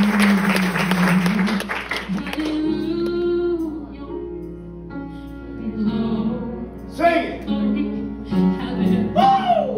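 Live worship music with singing over instruments. For the first two seconds the congregation is clapping or applauding over it; after that come held notes, and in the last few seconds a voice rises and falls over the music.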